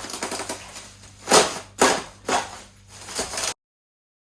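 Handling noise: short, sharp noisy scrapes, three in quick succession about half a second apart and a fainter one after, before the sound cuts off abruptly.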